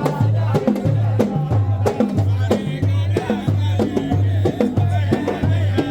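Music with a steady drum beat and low bass notes pulsing a little under twice a second, with a melody above them.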